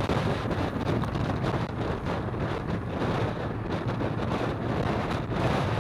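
Wind buffeting the microphone of a camera mounted on a moving vehicle, over steady road and traffic noise.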